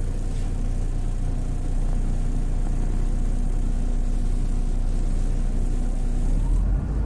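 Diesel engine and drivetrain of a MAZ 107 city bus heard from inside the passenger cabin, running steadily as the bus moves slowly, with a slight rise in level about two seconds in.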